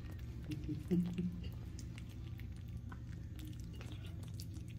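Hairless cats eating wet cat food from a plate: quick, soft wet chewing and smacking clicks.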